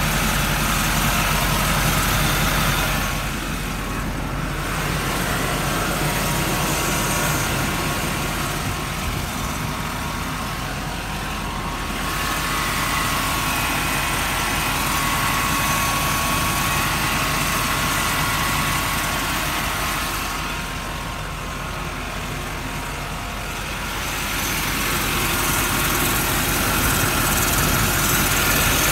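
Chevrolet C5500's 6.6-litre Duramax V8 turbodiesel idling steadily, with a thin steady whine over the low diesel hum.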